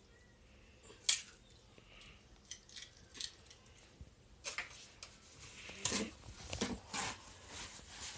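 Eggs being cracked and their shells handled over a bowl: scattered sharp clicks, taps and short scrapes, the sharpest about a second in and a cluster of them between about four and a half and seven seconds in.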